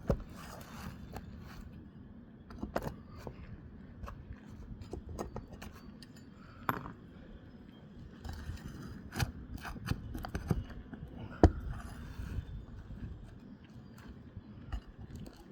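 Irregular scraping and clicking of a hand tool working under roof shingles to pull out the nails holding them, with one sharp knock about three quarters of the way through.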